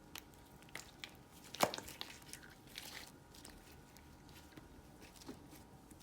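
Slime being squeezed and worked by hand, giving irregular sticky clicks and crackling pops, the loudest about a second and a half in.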